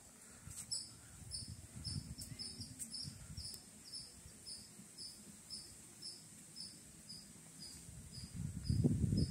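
An insect chirping in an even rhythm, about two short high chirps a second, with a low rumbling noise underneath that grows louder near the end.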